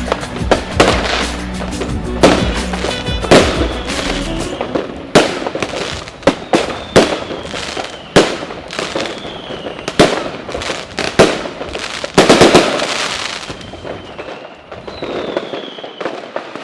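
Fireworks going off: many sharp bangs and crackles in quick succession, with a falling whistle about halfway through and another near the end.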